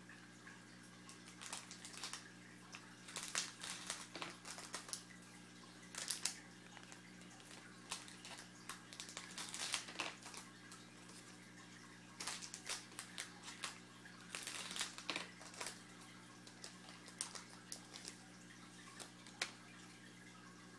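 Faint, irregular bursts of crinkling, crackling and rustling as a foil trading-card pack is torn open and the cards are handled, over a steady low hum.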